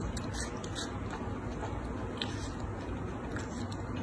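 A baby macaque biting and chewing watermelon: scattered short wet crunches and clicks over a steady low background noise.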